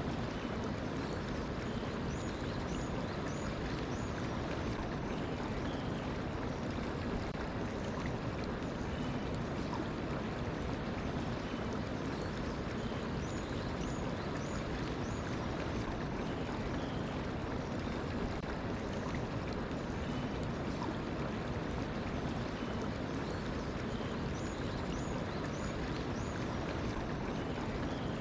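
Mountain stream flowing steadily. A small bird sings a short run of four or five high chirps three times, about every eleven seconds.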